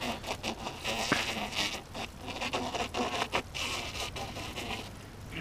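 Irregular scraping and rubbing with clicks and stretches of hiss, from hands working on a punctured mountain-bike tyre and inner tube during a trailside repair.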